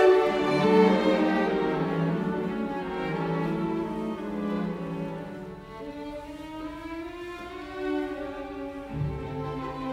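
Background music: a slow melody of long held notes.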